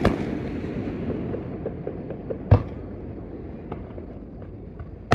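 Aerial fireworks shells bursting: one loud bang about halfway through and another at the very end, over a rumbling echo, with a few faint crackles in between.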